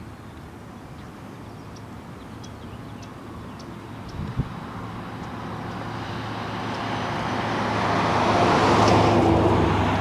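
A motor vehicle's engine passing by: a steady low hum that swells to its loudest about nine seconds in, then begins to fade.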